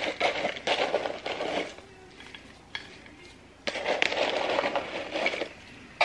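Crispy fried onions rattling as they are shaken out of a canister and scattered by hand onto a casserole, in two bursts with a short pause between.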